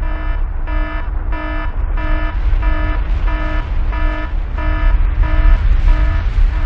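An electronic alarm beeping about ten times, roughly one and a half beeps a second, and stopping near the end, over a continuous deep explosion rumble.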